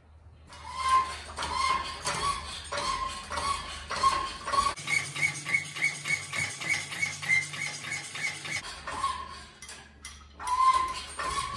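Steel engine hoist squeaking in a steady rhythm as it is worked with an engine hanging from it, a short squeak about once or twice a second. Midway the squeaks come higher and quicker, about four a second, then slow again near the end.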